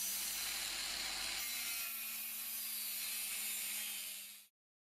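Proxxon LHW long neck angle grinder running with its disc working a workpiece: a steady abrasive hiss over a steady motor hum, fading out about four seconds in.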